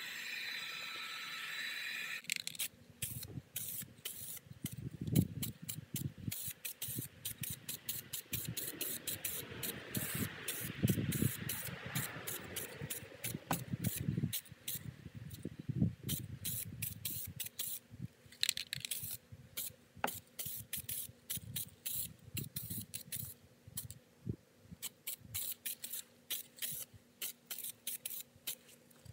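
A heat gun's blower hisses steadily and switches off about two seconds in. Then an aerosol spray paint can is sprayed in many short, quick bursts over a door sill being repaired for rust.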